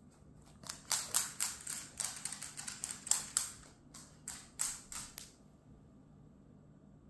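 Dog's claws clicking and scrabbling on a hard floor as a Wirehaired Pointing Griffon dashes about. It is a quick, irregular run of sharp clicks lasting about four seconds, with a short break near the end.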